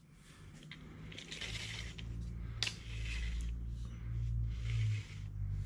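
Steel blade of a Stanley FatMax tape measure being slowly pulled out of its case, a metallic rasping whir with a sharp click about two and a half seconds in, over a low steady hum.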